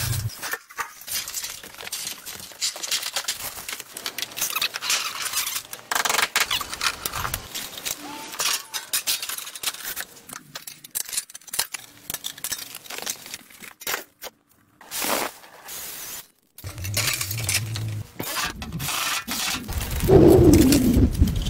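Irregular knocking, scraping and clattering from hand work on wood and tools, with a louder, heavier crash near the end.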